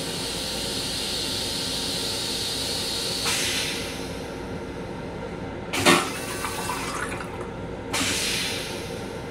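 Long Island Rail Road M7 railcar toilet going through its flush cycle: a steady hiss of rinse water in the stainless steel bowl, a short rush of water about three seconds in, a loud sharp clunk about six seconds in, and another rush near the end.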